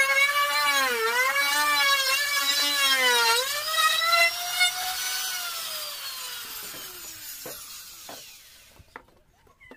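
Electric wood router cutting a tenon: its high motor whine sags in pitch each time the bit takes a cut, several times in the first few seconds. About five seconds in it is switched off and the whine falls steadily in pitch as it spins down, leaving a few faint knocks near the end.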